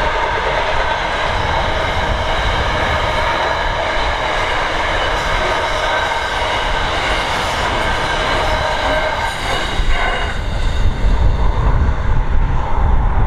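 Container wagons of a long intermodal freight train rolling past on the track, their wheels giving a steady, high-pitched squeal over the rail noise. The train sound fades about ten seconds in as the last wagons pass, leaving a low wind rumble on the microphone.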